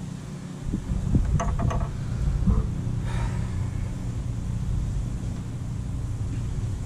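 A steady low mechanical hum, with a few light clicks and taps in the first few seconds.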